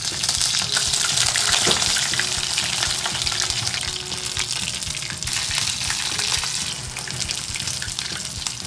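Karaage (battered chicken pieces) frying in oil at about 200 °C for the second, crisping fry: a dense, steady sizzle full of fine crackles.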